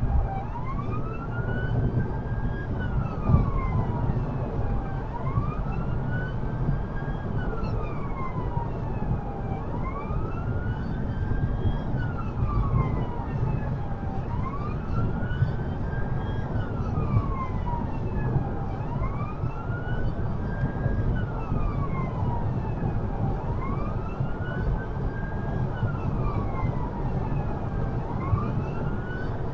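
Emergency response car's siren on a slow wail, its pitch rising and falling about every four and a half seconds, heard inside the cabin over steady road and engine noise at high speed.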